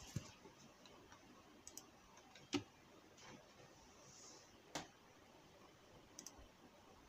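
Near silence broken by a handful of scattered, faint clicks and taps, the loudest about a third of the way in.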